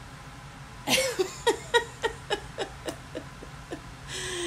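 A woman laughing heartily: a run of about eleven short 'ha' pulses, roughly four a second, each dropping in pitch. It ends in a drawn-out breathy note near the end.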